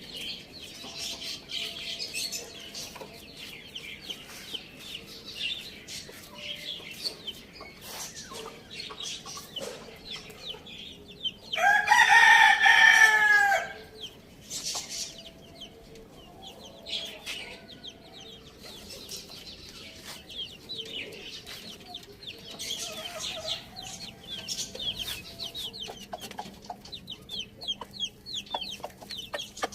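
Hen and rooster clucking, with many short high calls and small sharp clicks. The rooster crows once, loud, about twelve seconds in, for about two seconds.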